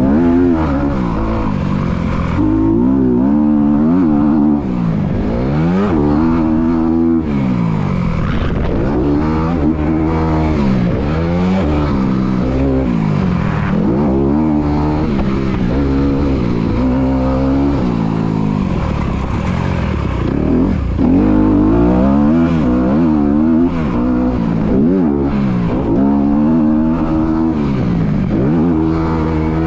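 Dirt bike engine under riding load, its pitch rising and falling over and over as the throttle is opened and rolled off through the jumps and turns of a motocross track.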